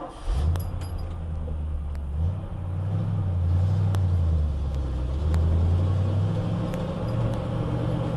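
Grain truck's engine starting about half a second in, then running with a low, uneven pitch that rises and falls as the truck is driven off.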